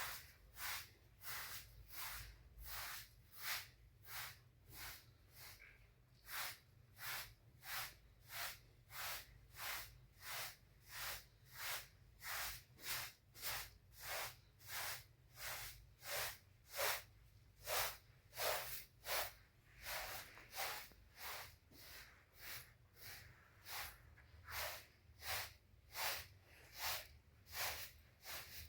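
Steady, regular swishing strokes, about three every two seconds, over a faint low rumble.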